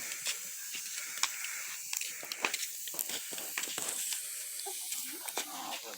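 Wood bonfire burning, with a steady hiss and irregular sharp crackles and pops.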